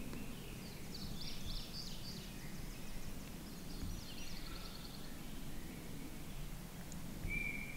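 Outdoor field-edge ambience: a steady low background noise with small songbirds calling. A few quick high chirps and a fast trill come in the first five seconds, then a single short whistled note near the end.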